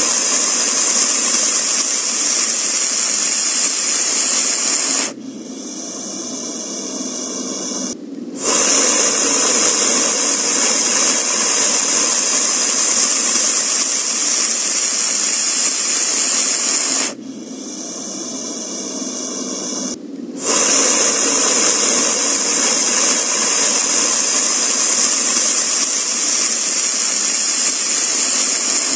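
A loud, steady hiss in long stretches of several seconds, cut off sharply twice by quieter gaps of about three seconds.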